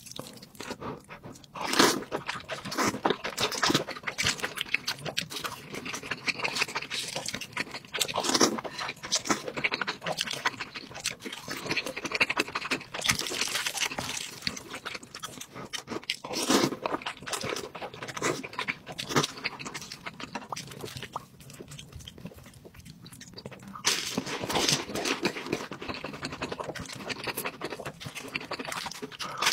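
Close-miked eating: a person chewing and crunching food in uneven bursts of crackling bites.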